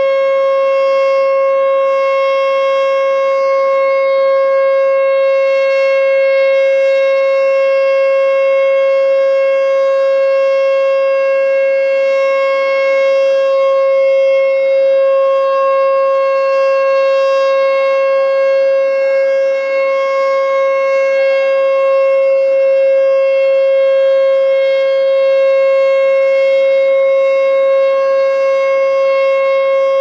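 ASC T-121 outdoor warning siren sounding a steady tone at one unchanging pitch, loud and without a rise or fall.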